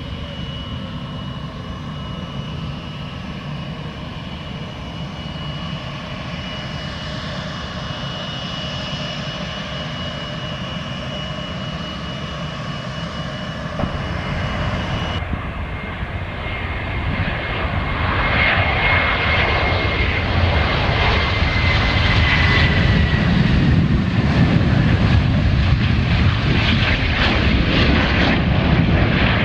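Bombardier Global business jet's twin turbofans at low power while taxiing, a steady high whine over the engine noise. Midway the sound changes abruptly to the jet at takeoff power, growing louder, with a faint whine sliding down in pitch.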